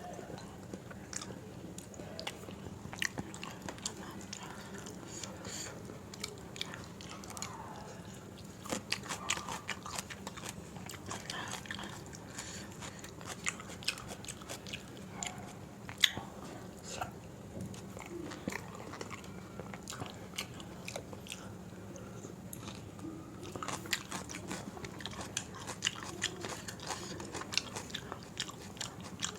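Close-miked chewing and mouth sounds of someone eating soft rice and dal with potato bhaji and baingan bharta: many irregular wet smacks and clicks, with one sharper click about sixteen seconds in.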